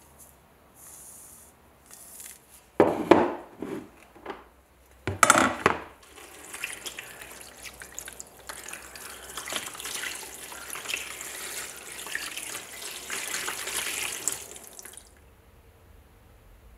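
Two loud knocks a couple of seconds apart, then 9% vinegar poured in a steady stream into a plastic tub holding a rusty steel bayonet, splashing for about nine seconds and cutting off suddenly. The bayonet is being covered in vinegar to dissolve its rust.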